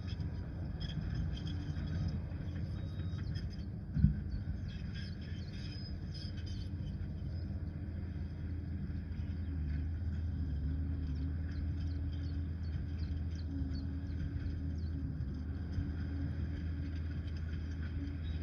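Liebherr 746 crawler dozer's diesel engine running with a steady low drone, and one sharp knock about four seconds in.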